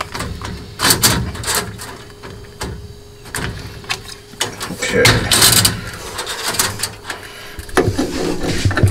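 Scattered clicks, taps and light knocks of small metal parts and plastic tubing being handled as a CO2 laser engraver's head, with its nozzle and mirror mount, is reassembled. A brief louder rustle comes about five seconds in.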